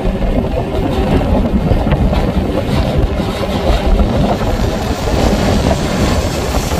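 Wind buffeting the microphone: a loud, steady low rumble with an irregular flutter.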